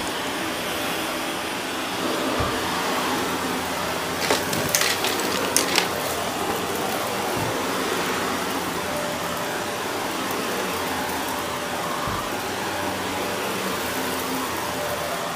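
Shark Navigator upright vacuum running steadily over carpet, with a quick cluster of sharp crackles about four to six seconds in as grit rattles up into it.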